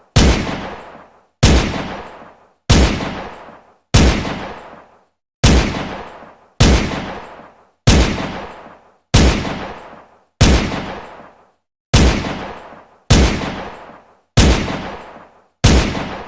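Glock pistol firing single shots at a slow, steady pace, about one every second and a half, thirteen or so in all. Each shot is a sharp crack followed by an echoing tail that dies away within about a second.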